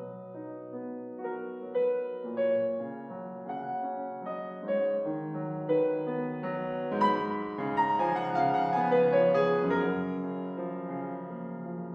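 Background piano music: a gentle melody of single notes over sustained chords, growing fuller and brighter about seven seconds in.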